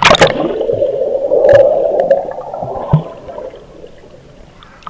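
A swimmer splashes hard right beside the camera, then the sound goes underwater: a loud, muffled rush of churning water and bubbles for about three seconds, fading to a quieter underwater hush. A short splash comes at the end.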